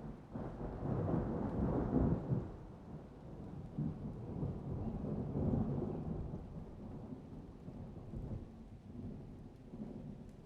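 A thunderstorm: a long peal of thunder breaks in suddenly and rolls, peaking about two seconds in and swelling again midway before slowly dying away, with rain falling underneath.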